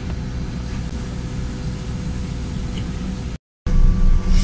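Steady low vehicle rumble with a faint constant hum. After a brief dropout near the end, a louder, uneven rumble follows as a bus runs along the elevated busway.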